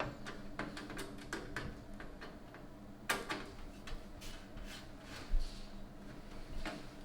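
Scattered light clicks and taps of screws and a screwdriver as a motherboard is screwed down onto the standoffs of a PC case, with a dull thump about five seconds in.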